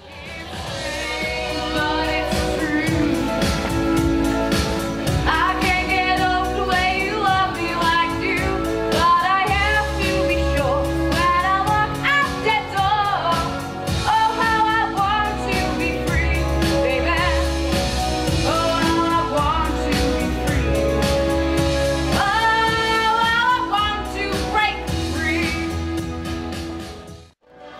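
A song sung by several voices over an instrumental backing with a steady bass beat; the bass grows heavier about ten seconds in.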